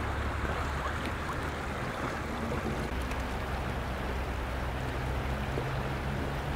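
Creek water flowing over rocks and shallows: a steady rushing hiss.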